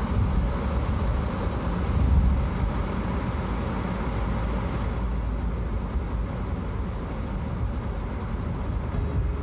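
Steady road noise inside a moving car's cabin: a low rumble with a hiss of tyres on wet pavement. A brief louder swell comes about two seconds in, and the hiss eases about halfway through.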